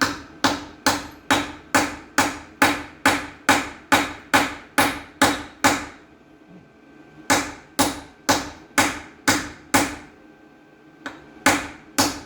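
Hammer striking a 17 mm socket to force it onto a Jaguar XF's locking wheel nut, whose key is lost: steady blows about two a second, each ringing briefly, in three runs broken by short pauses about six and ten seconds in.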